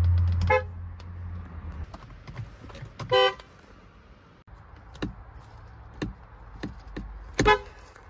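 BMW car horns honked in short beeps, one car after another: a brief toot about half a second in, a longer one about three seconds in, and another near the end, with faint clicks in between. A loud low hum at the start stops within the first second.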